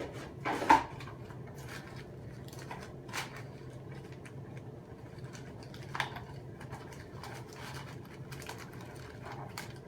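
Sparse light clicks and taps of small parts being pulled off and handled on an 18V Snap-on battery pack during its rebuild, the sharpest one just under a second in, over a steady low hum.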